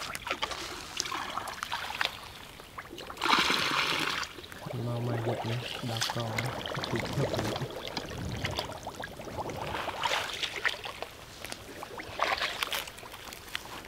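Shallow pond water splashing and sloshing as a person wades and scoops through it by hand, with a louder splash about three seconds in.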